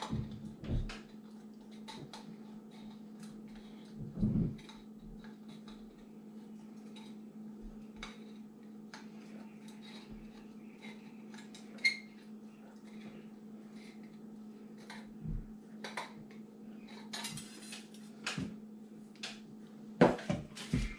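Scissors snipping around the rim of a thin metal can, a run of small sharp clicks and crinkles over a steady low hum. Near the end the can is set down on the table with a few knocks.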